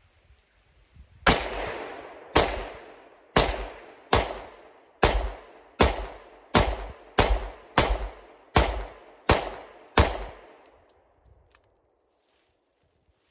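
Twelve 9mm pistol shots from a SIG P365, each sharp crack followed by a short echo, the pace quickening from about one a second to about one and a half a second. A few faint clicks follow as the pistol is handled after the string.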